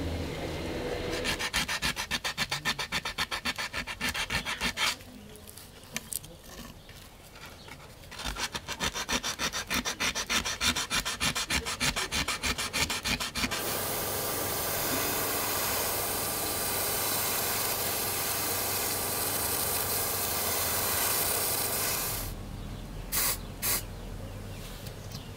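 Abrasive paper rubbed back and forth along the edge of a thin metal spoon-lure blank, in quick, even strokes, in two spells with a pause between. Then an aerosol spray-paint can hisses steadily for about eight seconds, followed by two short spritzes.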